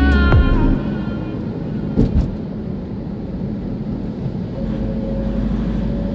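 Steady road and engine noise heard from inside a moving vehicle on a city road. A music clip cuts off within the first second, and there are two short low thumps about two seconds in.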